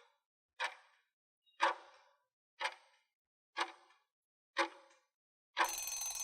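Countdown timer sound effect ticking once a second, five ticks, then a short tone-filled chime-like sound near the end as the time for answering runs out.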